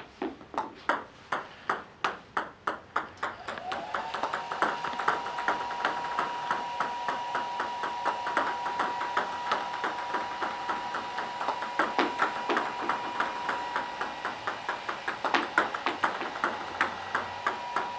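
Table tennis balls being served and bouncing, a quick train of sharp clicks, several a second. About three and a half seconds in, a steady high hum fades in and holds under the clicks.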